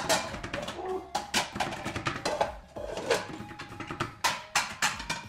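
Irregular knocks and clinks of kitchen work: a knife tapping on a chopping board and pots being handled, with music playing in the background.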